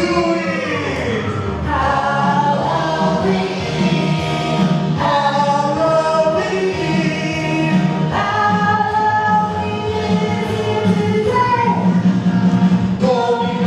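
A song: voices singing held, gliding notes over a steady musical accompaniment.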